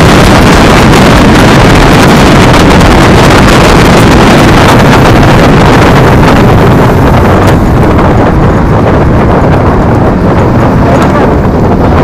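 Heavy wind buffeting on the microphone of a camera mounted low on a moving electric scooter, mixed with road and tyre rumble. It is a dense, loud noise with no engine note, and the upper hiss eases about two-thirds of the way through.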